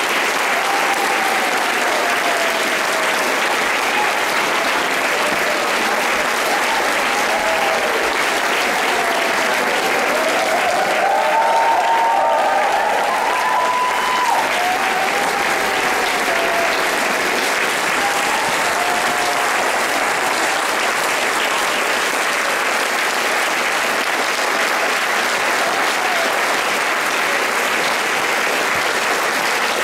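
Audience applauding steadily after a concert, with a few voices calling out over the clapping, most of them about halfway through, where the applause swells slightly.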